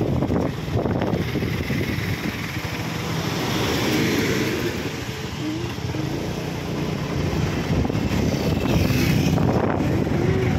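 Motorcycle on the move: wind rushing over the microphone with steady engine and road noise.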